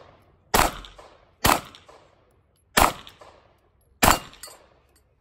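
Four 9mm pistol shots from a Glock 43, spaced roughly a second apart, each trailing off in a short echo.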